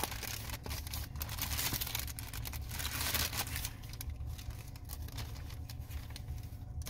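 Paper fast-food wrapper crinkling and rustling as hands unfold it, busiest in the first few seconds and quieter near the end, with a steady low hum underneath.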